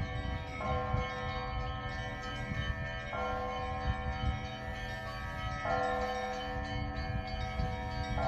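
Orthodox monastery church bells ringing, with a new strike about every two and a half seconds, each one ringing on into the next.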